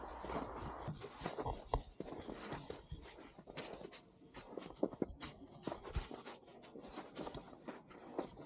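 Boots crunching through snow step by step, an uneven run of short crunches, with a denser crunching in the first second.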